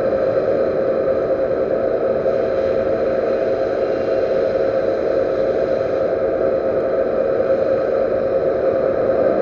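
Metal lathe running steadily, its spindle and drive giving a constant whine over a mechanical hum.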